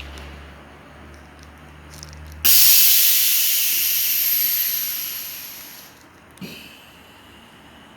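Kia K5 air suspension venting air: a low hum stops and a sudden loud hiss of air being released through the suspension's solenoid valve starts, fading away over about three and a half seconds, followed by a short thump. The car is in for a faulty front driver-side solenoid valve.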